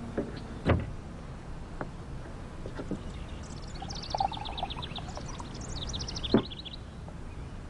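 Quiet kitchen sounds: two sharp knocks, one about a second in and one near the end. In the middle there is faint, quick, high-pitched twittering of small birds.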